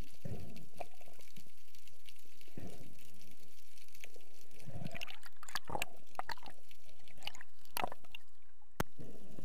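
Muffled underwater water noise picked up by a camera in a waterproof housing: gurgling, sloshing swells about every two seconds, turning to denser clicks and crackles about halfway through.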